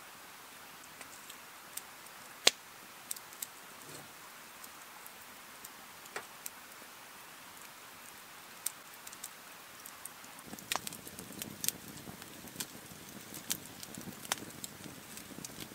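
Wood campfire crackling: a faint steady hiss with occasional sharp pops at first, the loudest about two and a half seconds in, then from about ten seconds in a low rush of flames with frequent crackles and pops.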